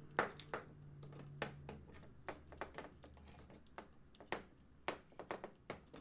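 A dozen or so sharp, irregular clicks and taps from handling a graphics card and fitting its thin sheet-metal low-profile bracket.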